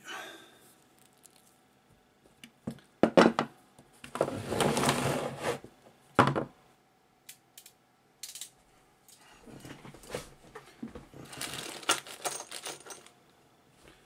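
Heavy 2-gauge battery cable and hand tools being handled on a wooden workbench: a few sharp knocks and clatters about three seconds in, and longer dragging sounds as the cable coil is moved across the bench.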